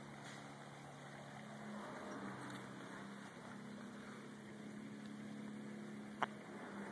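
Faint steady low mechanical hum, like a distant engine, with one sharp click about six seconds in.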